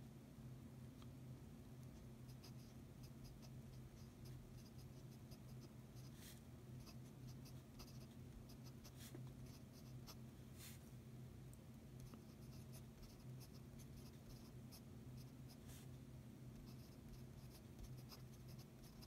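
Fountain pen nib scratching faintly across paper in many short strokes with brief pauses, handwriting character by character.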